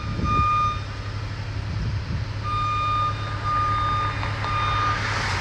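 Back-up alarm on heavy construction equipment giving repeated beeps, each about half a second to a second long, with a pause of a couple of seconds in the first half, over the steady low hum of a running engine.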